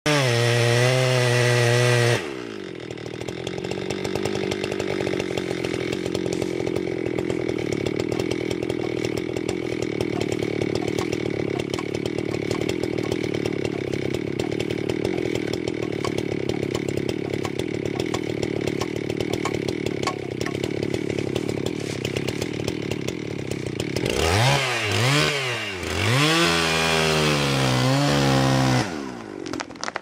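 Gasoline chainsaw at full throttle, then bogging into a steady lower-pitched drone as it cuts through the base of a large conifer for about twenty seconds. Near the end the engine revs up and down several times, then drops away.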